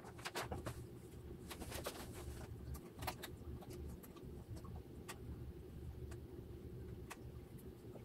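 Faint clicks and taps of plastic and metal as the stock AMD CPU cooler's side clips are worked by hand onto the motherboard's mounting bracket, over a low steady hum.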